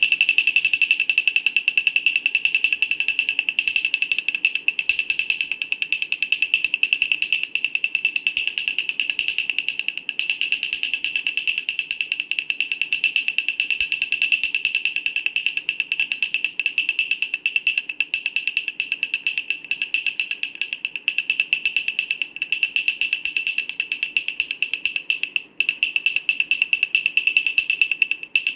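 Wooden baby rattle shaken rapidly and continuously: a dense, steady clatter of many fast clicks with a bright ringing tone, dipping briefly near the end.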